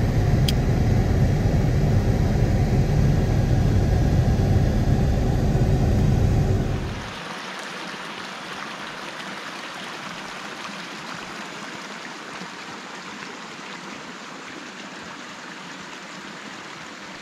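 Low, steady rumble of a Jeep Cherokee XJ driving, heard from inside the cab. About seven seconds in it cuts off suddenly to the quieter, steady rush of a shallow creek running over rocks.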